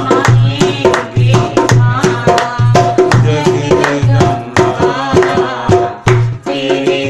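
Dholak played by hand in a driving folk rhythm, with deep bass strokes about twice a second and sharp slaps between them, over a sustained melody line.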